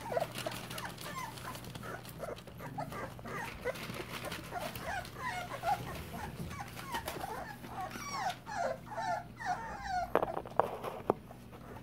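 Three-week-old puppies whimpering and squeaking in a rapid string of short, high, sliding calls, with newspaper rustling under their paws. A few sharp clicks near the end.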